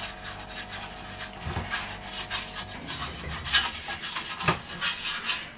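Pastry brush rubbing oil over a metal baking tray in a run of short back-and-forth strokes.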